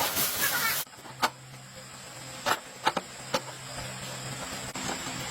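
A loud hiss that cuts off sharply just under a second in, then a few sharp clicks over a faint steady hum.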